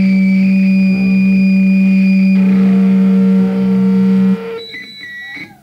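Amplified punk band's last chord held as a loud steady drone, with a high feedback whine over it. It stops suddenly about four seconds in, leaving faint high ringing tones that die away.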